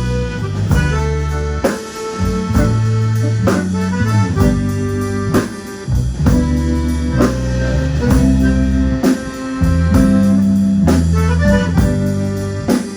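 Band music with a steady beat: drum kit, bass and guitar, with reedy held notes.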